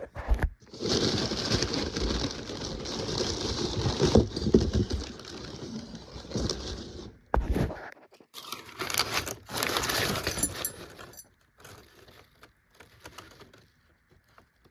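Packaging crinkling and rustling for several seconds as a tool order is unwrapped, then a few shorter rustles and handling knocks about eight to eleven seconds in, dying down to faint small handling sounds near the end.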